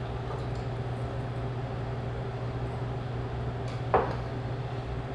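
Malt tea poured into a small tasting glass, then a glass set down on the bar top with a single clink about four seconds in, over a steady low room hum.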